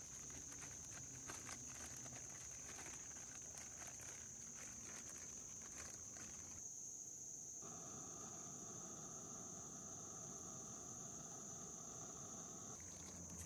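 Steady high-pitched chirring of an insect chorus, with faint scattered ticks and rustles in the first half.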